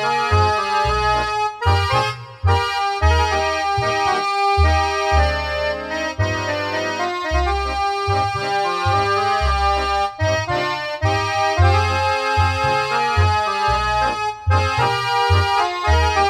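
Accordion-led music with sustained melody notes over a pulsing bass line.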